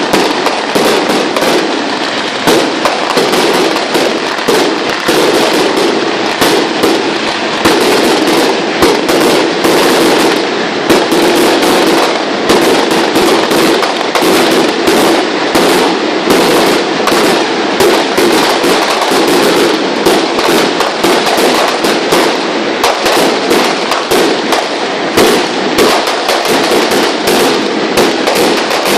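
Firecrackers going off nonstop in a loud, dense crackle of rapid bangs with no break.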